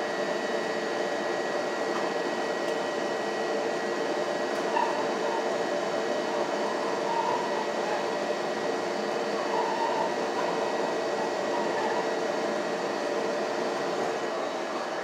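A CTA 2600-series Budd rapid-transit car in motion, heard from inside: the steady hum and whine of its DC traction motors over the rush of wheels on rail.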